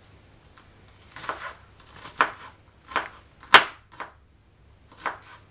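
Kitchen knife chopping onion on a wooden cutting board: about six separate knocks of the blade on the board at uneven spacing, starting about a second in, the loudest a little past the middle.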